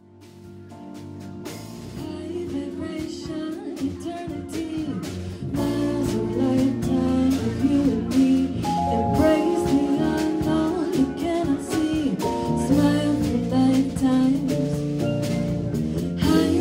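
Jazz track with steel drums, bass, keys and drum kit, with a voice singing over it. It fades in from near silence over the first couple of seconds and gets fuller about five seconds in.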